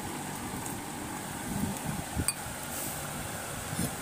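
Steady hum of a running fan in a room, with two faint clinks of steel tableware, about two seconds in and near the end.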